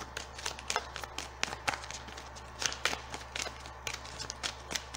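A deck of tarot cards being shuffled by hand: a quick, uneven patter of light card clicks and slaps, several a second.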